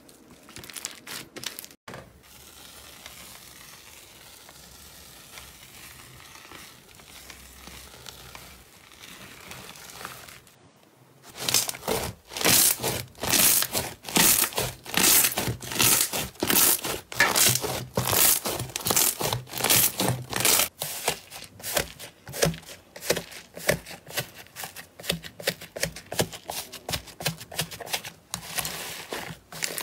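Slime being stretched, pressed and poked by hand, making sticky clicks and crackling pops as air pockets burst. After a quieter, steadier stretch, the crackle turns loud and rapid, with many sharp pops a second.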